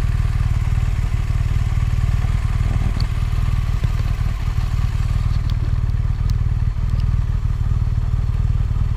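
Motorcycle engine running steadily at an even speed, with no change in revs, and a few faint ticks.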